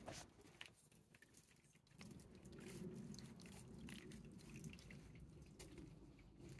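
Faint scattered clicks and rustles from a hedgehog in a garden hedgehog house, over a low steady hum that drops away for about two seconds near the start.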